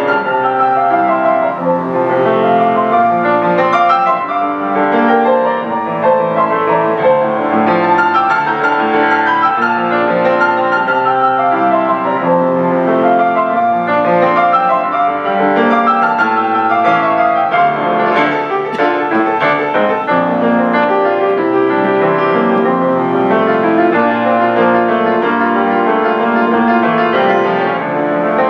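Baldwin grand piano played solo, a continuous flow of many notes with no pauses.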